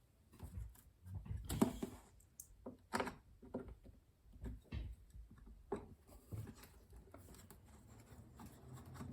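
Faint knocks, clicks and scraping of hands fitting a rubber foot, its metal piece and screw back onto a typewriter's base. The sharpest knocks come a little over a second and a half in and about three seconds in.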